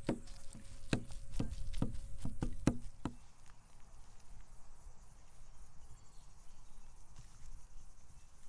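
A heavy sword-like cleaver chops meat on a wooden butcher block, mincing it by hand: about eight sharp knocks over the first three seconds, then it stops. Insects chirp high and steady through the rest.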